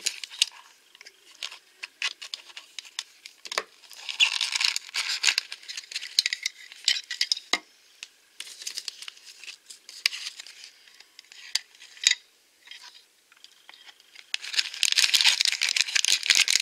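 Hands handling toy packaging: scattered clicks and taps of a hard plastic case. Bursts of crinkling from thin plastic wrapping come about four seconds in and again near the end as an orange wrapper is pulled open.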